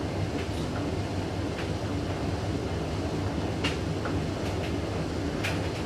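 Hoover washing machine's motor running and drum turning with a steady low rumble and hum, with a few faint knocks: the machine is trying to balance an out-of-balance load of bedding and failing to get up to its final spin, which the owner puts down to the blanket bunching up.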